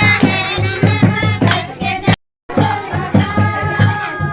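Kumaoni Holi folk singing over a steady drum beat and jingling rattle percussion. The sound cuts out completely for a moment a little after halfway, then resumes.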